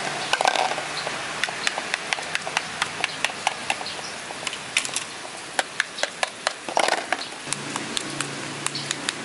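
Plastic toy kitchen play: a toy knife tapping and clacking on plastic toy vegetables, which are dropped into a plastic bowl. Irregular light clicks and knocks, several a second at times.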